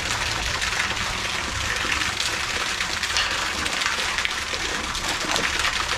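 A steady rush of water.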